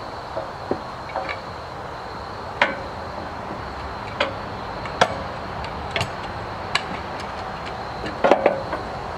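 Scattered knocks and clanks, about a dozen irregular single strikes with a tight cluster near the end, from a bandsaw sawmill's log-handling gear as the log is shoved against the uprights and clamped in place.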